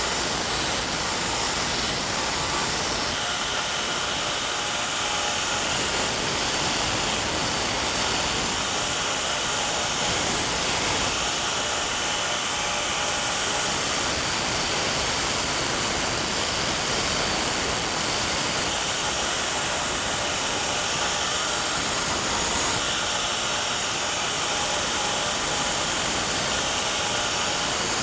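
Belt grinder with a coarse-grit belt grinding the steel striking surface of a farrier's punch, a steady hiss, dressing down a cracked edge into a rounded radius.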